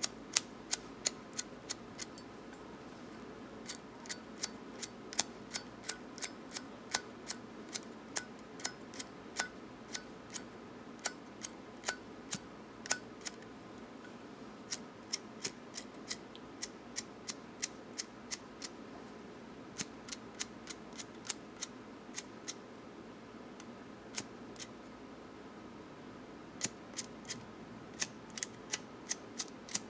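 Zippo lighter struck over and over: sharp metal clicks about one or two a second, sometimes in quick pairs, as the flint wheel is spun without the lighter catching. The lighter is temperamental and may be low on fuel.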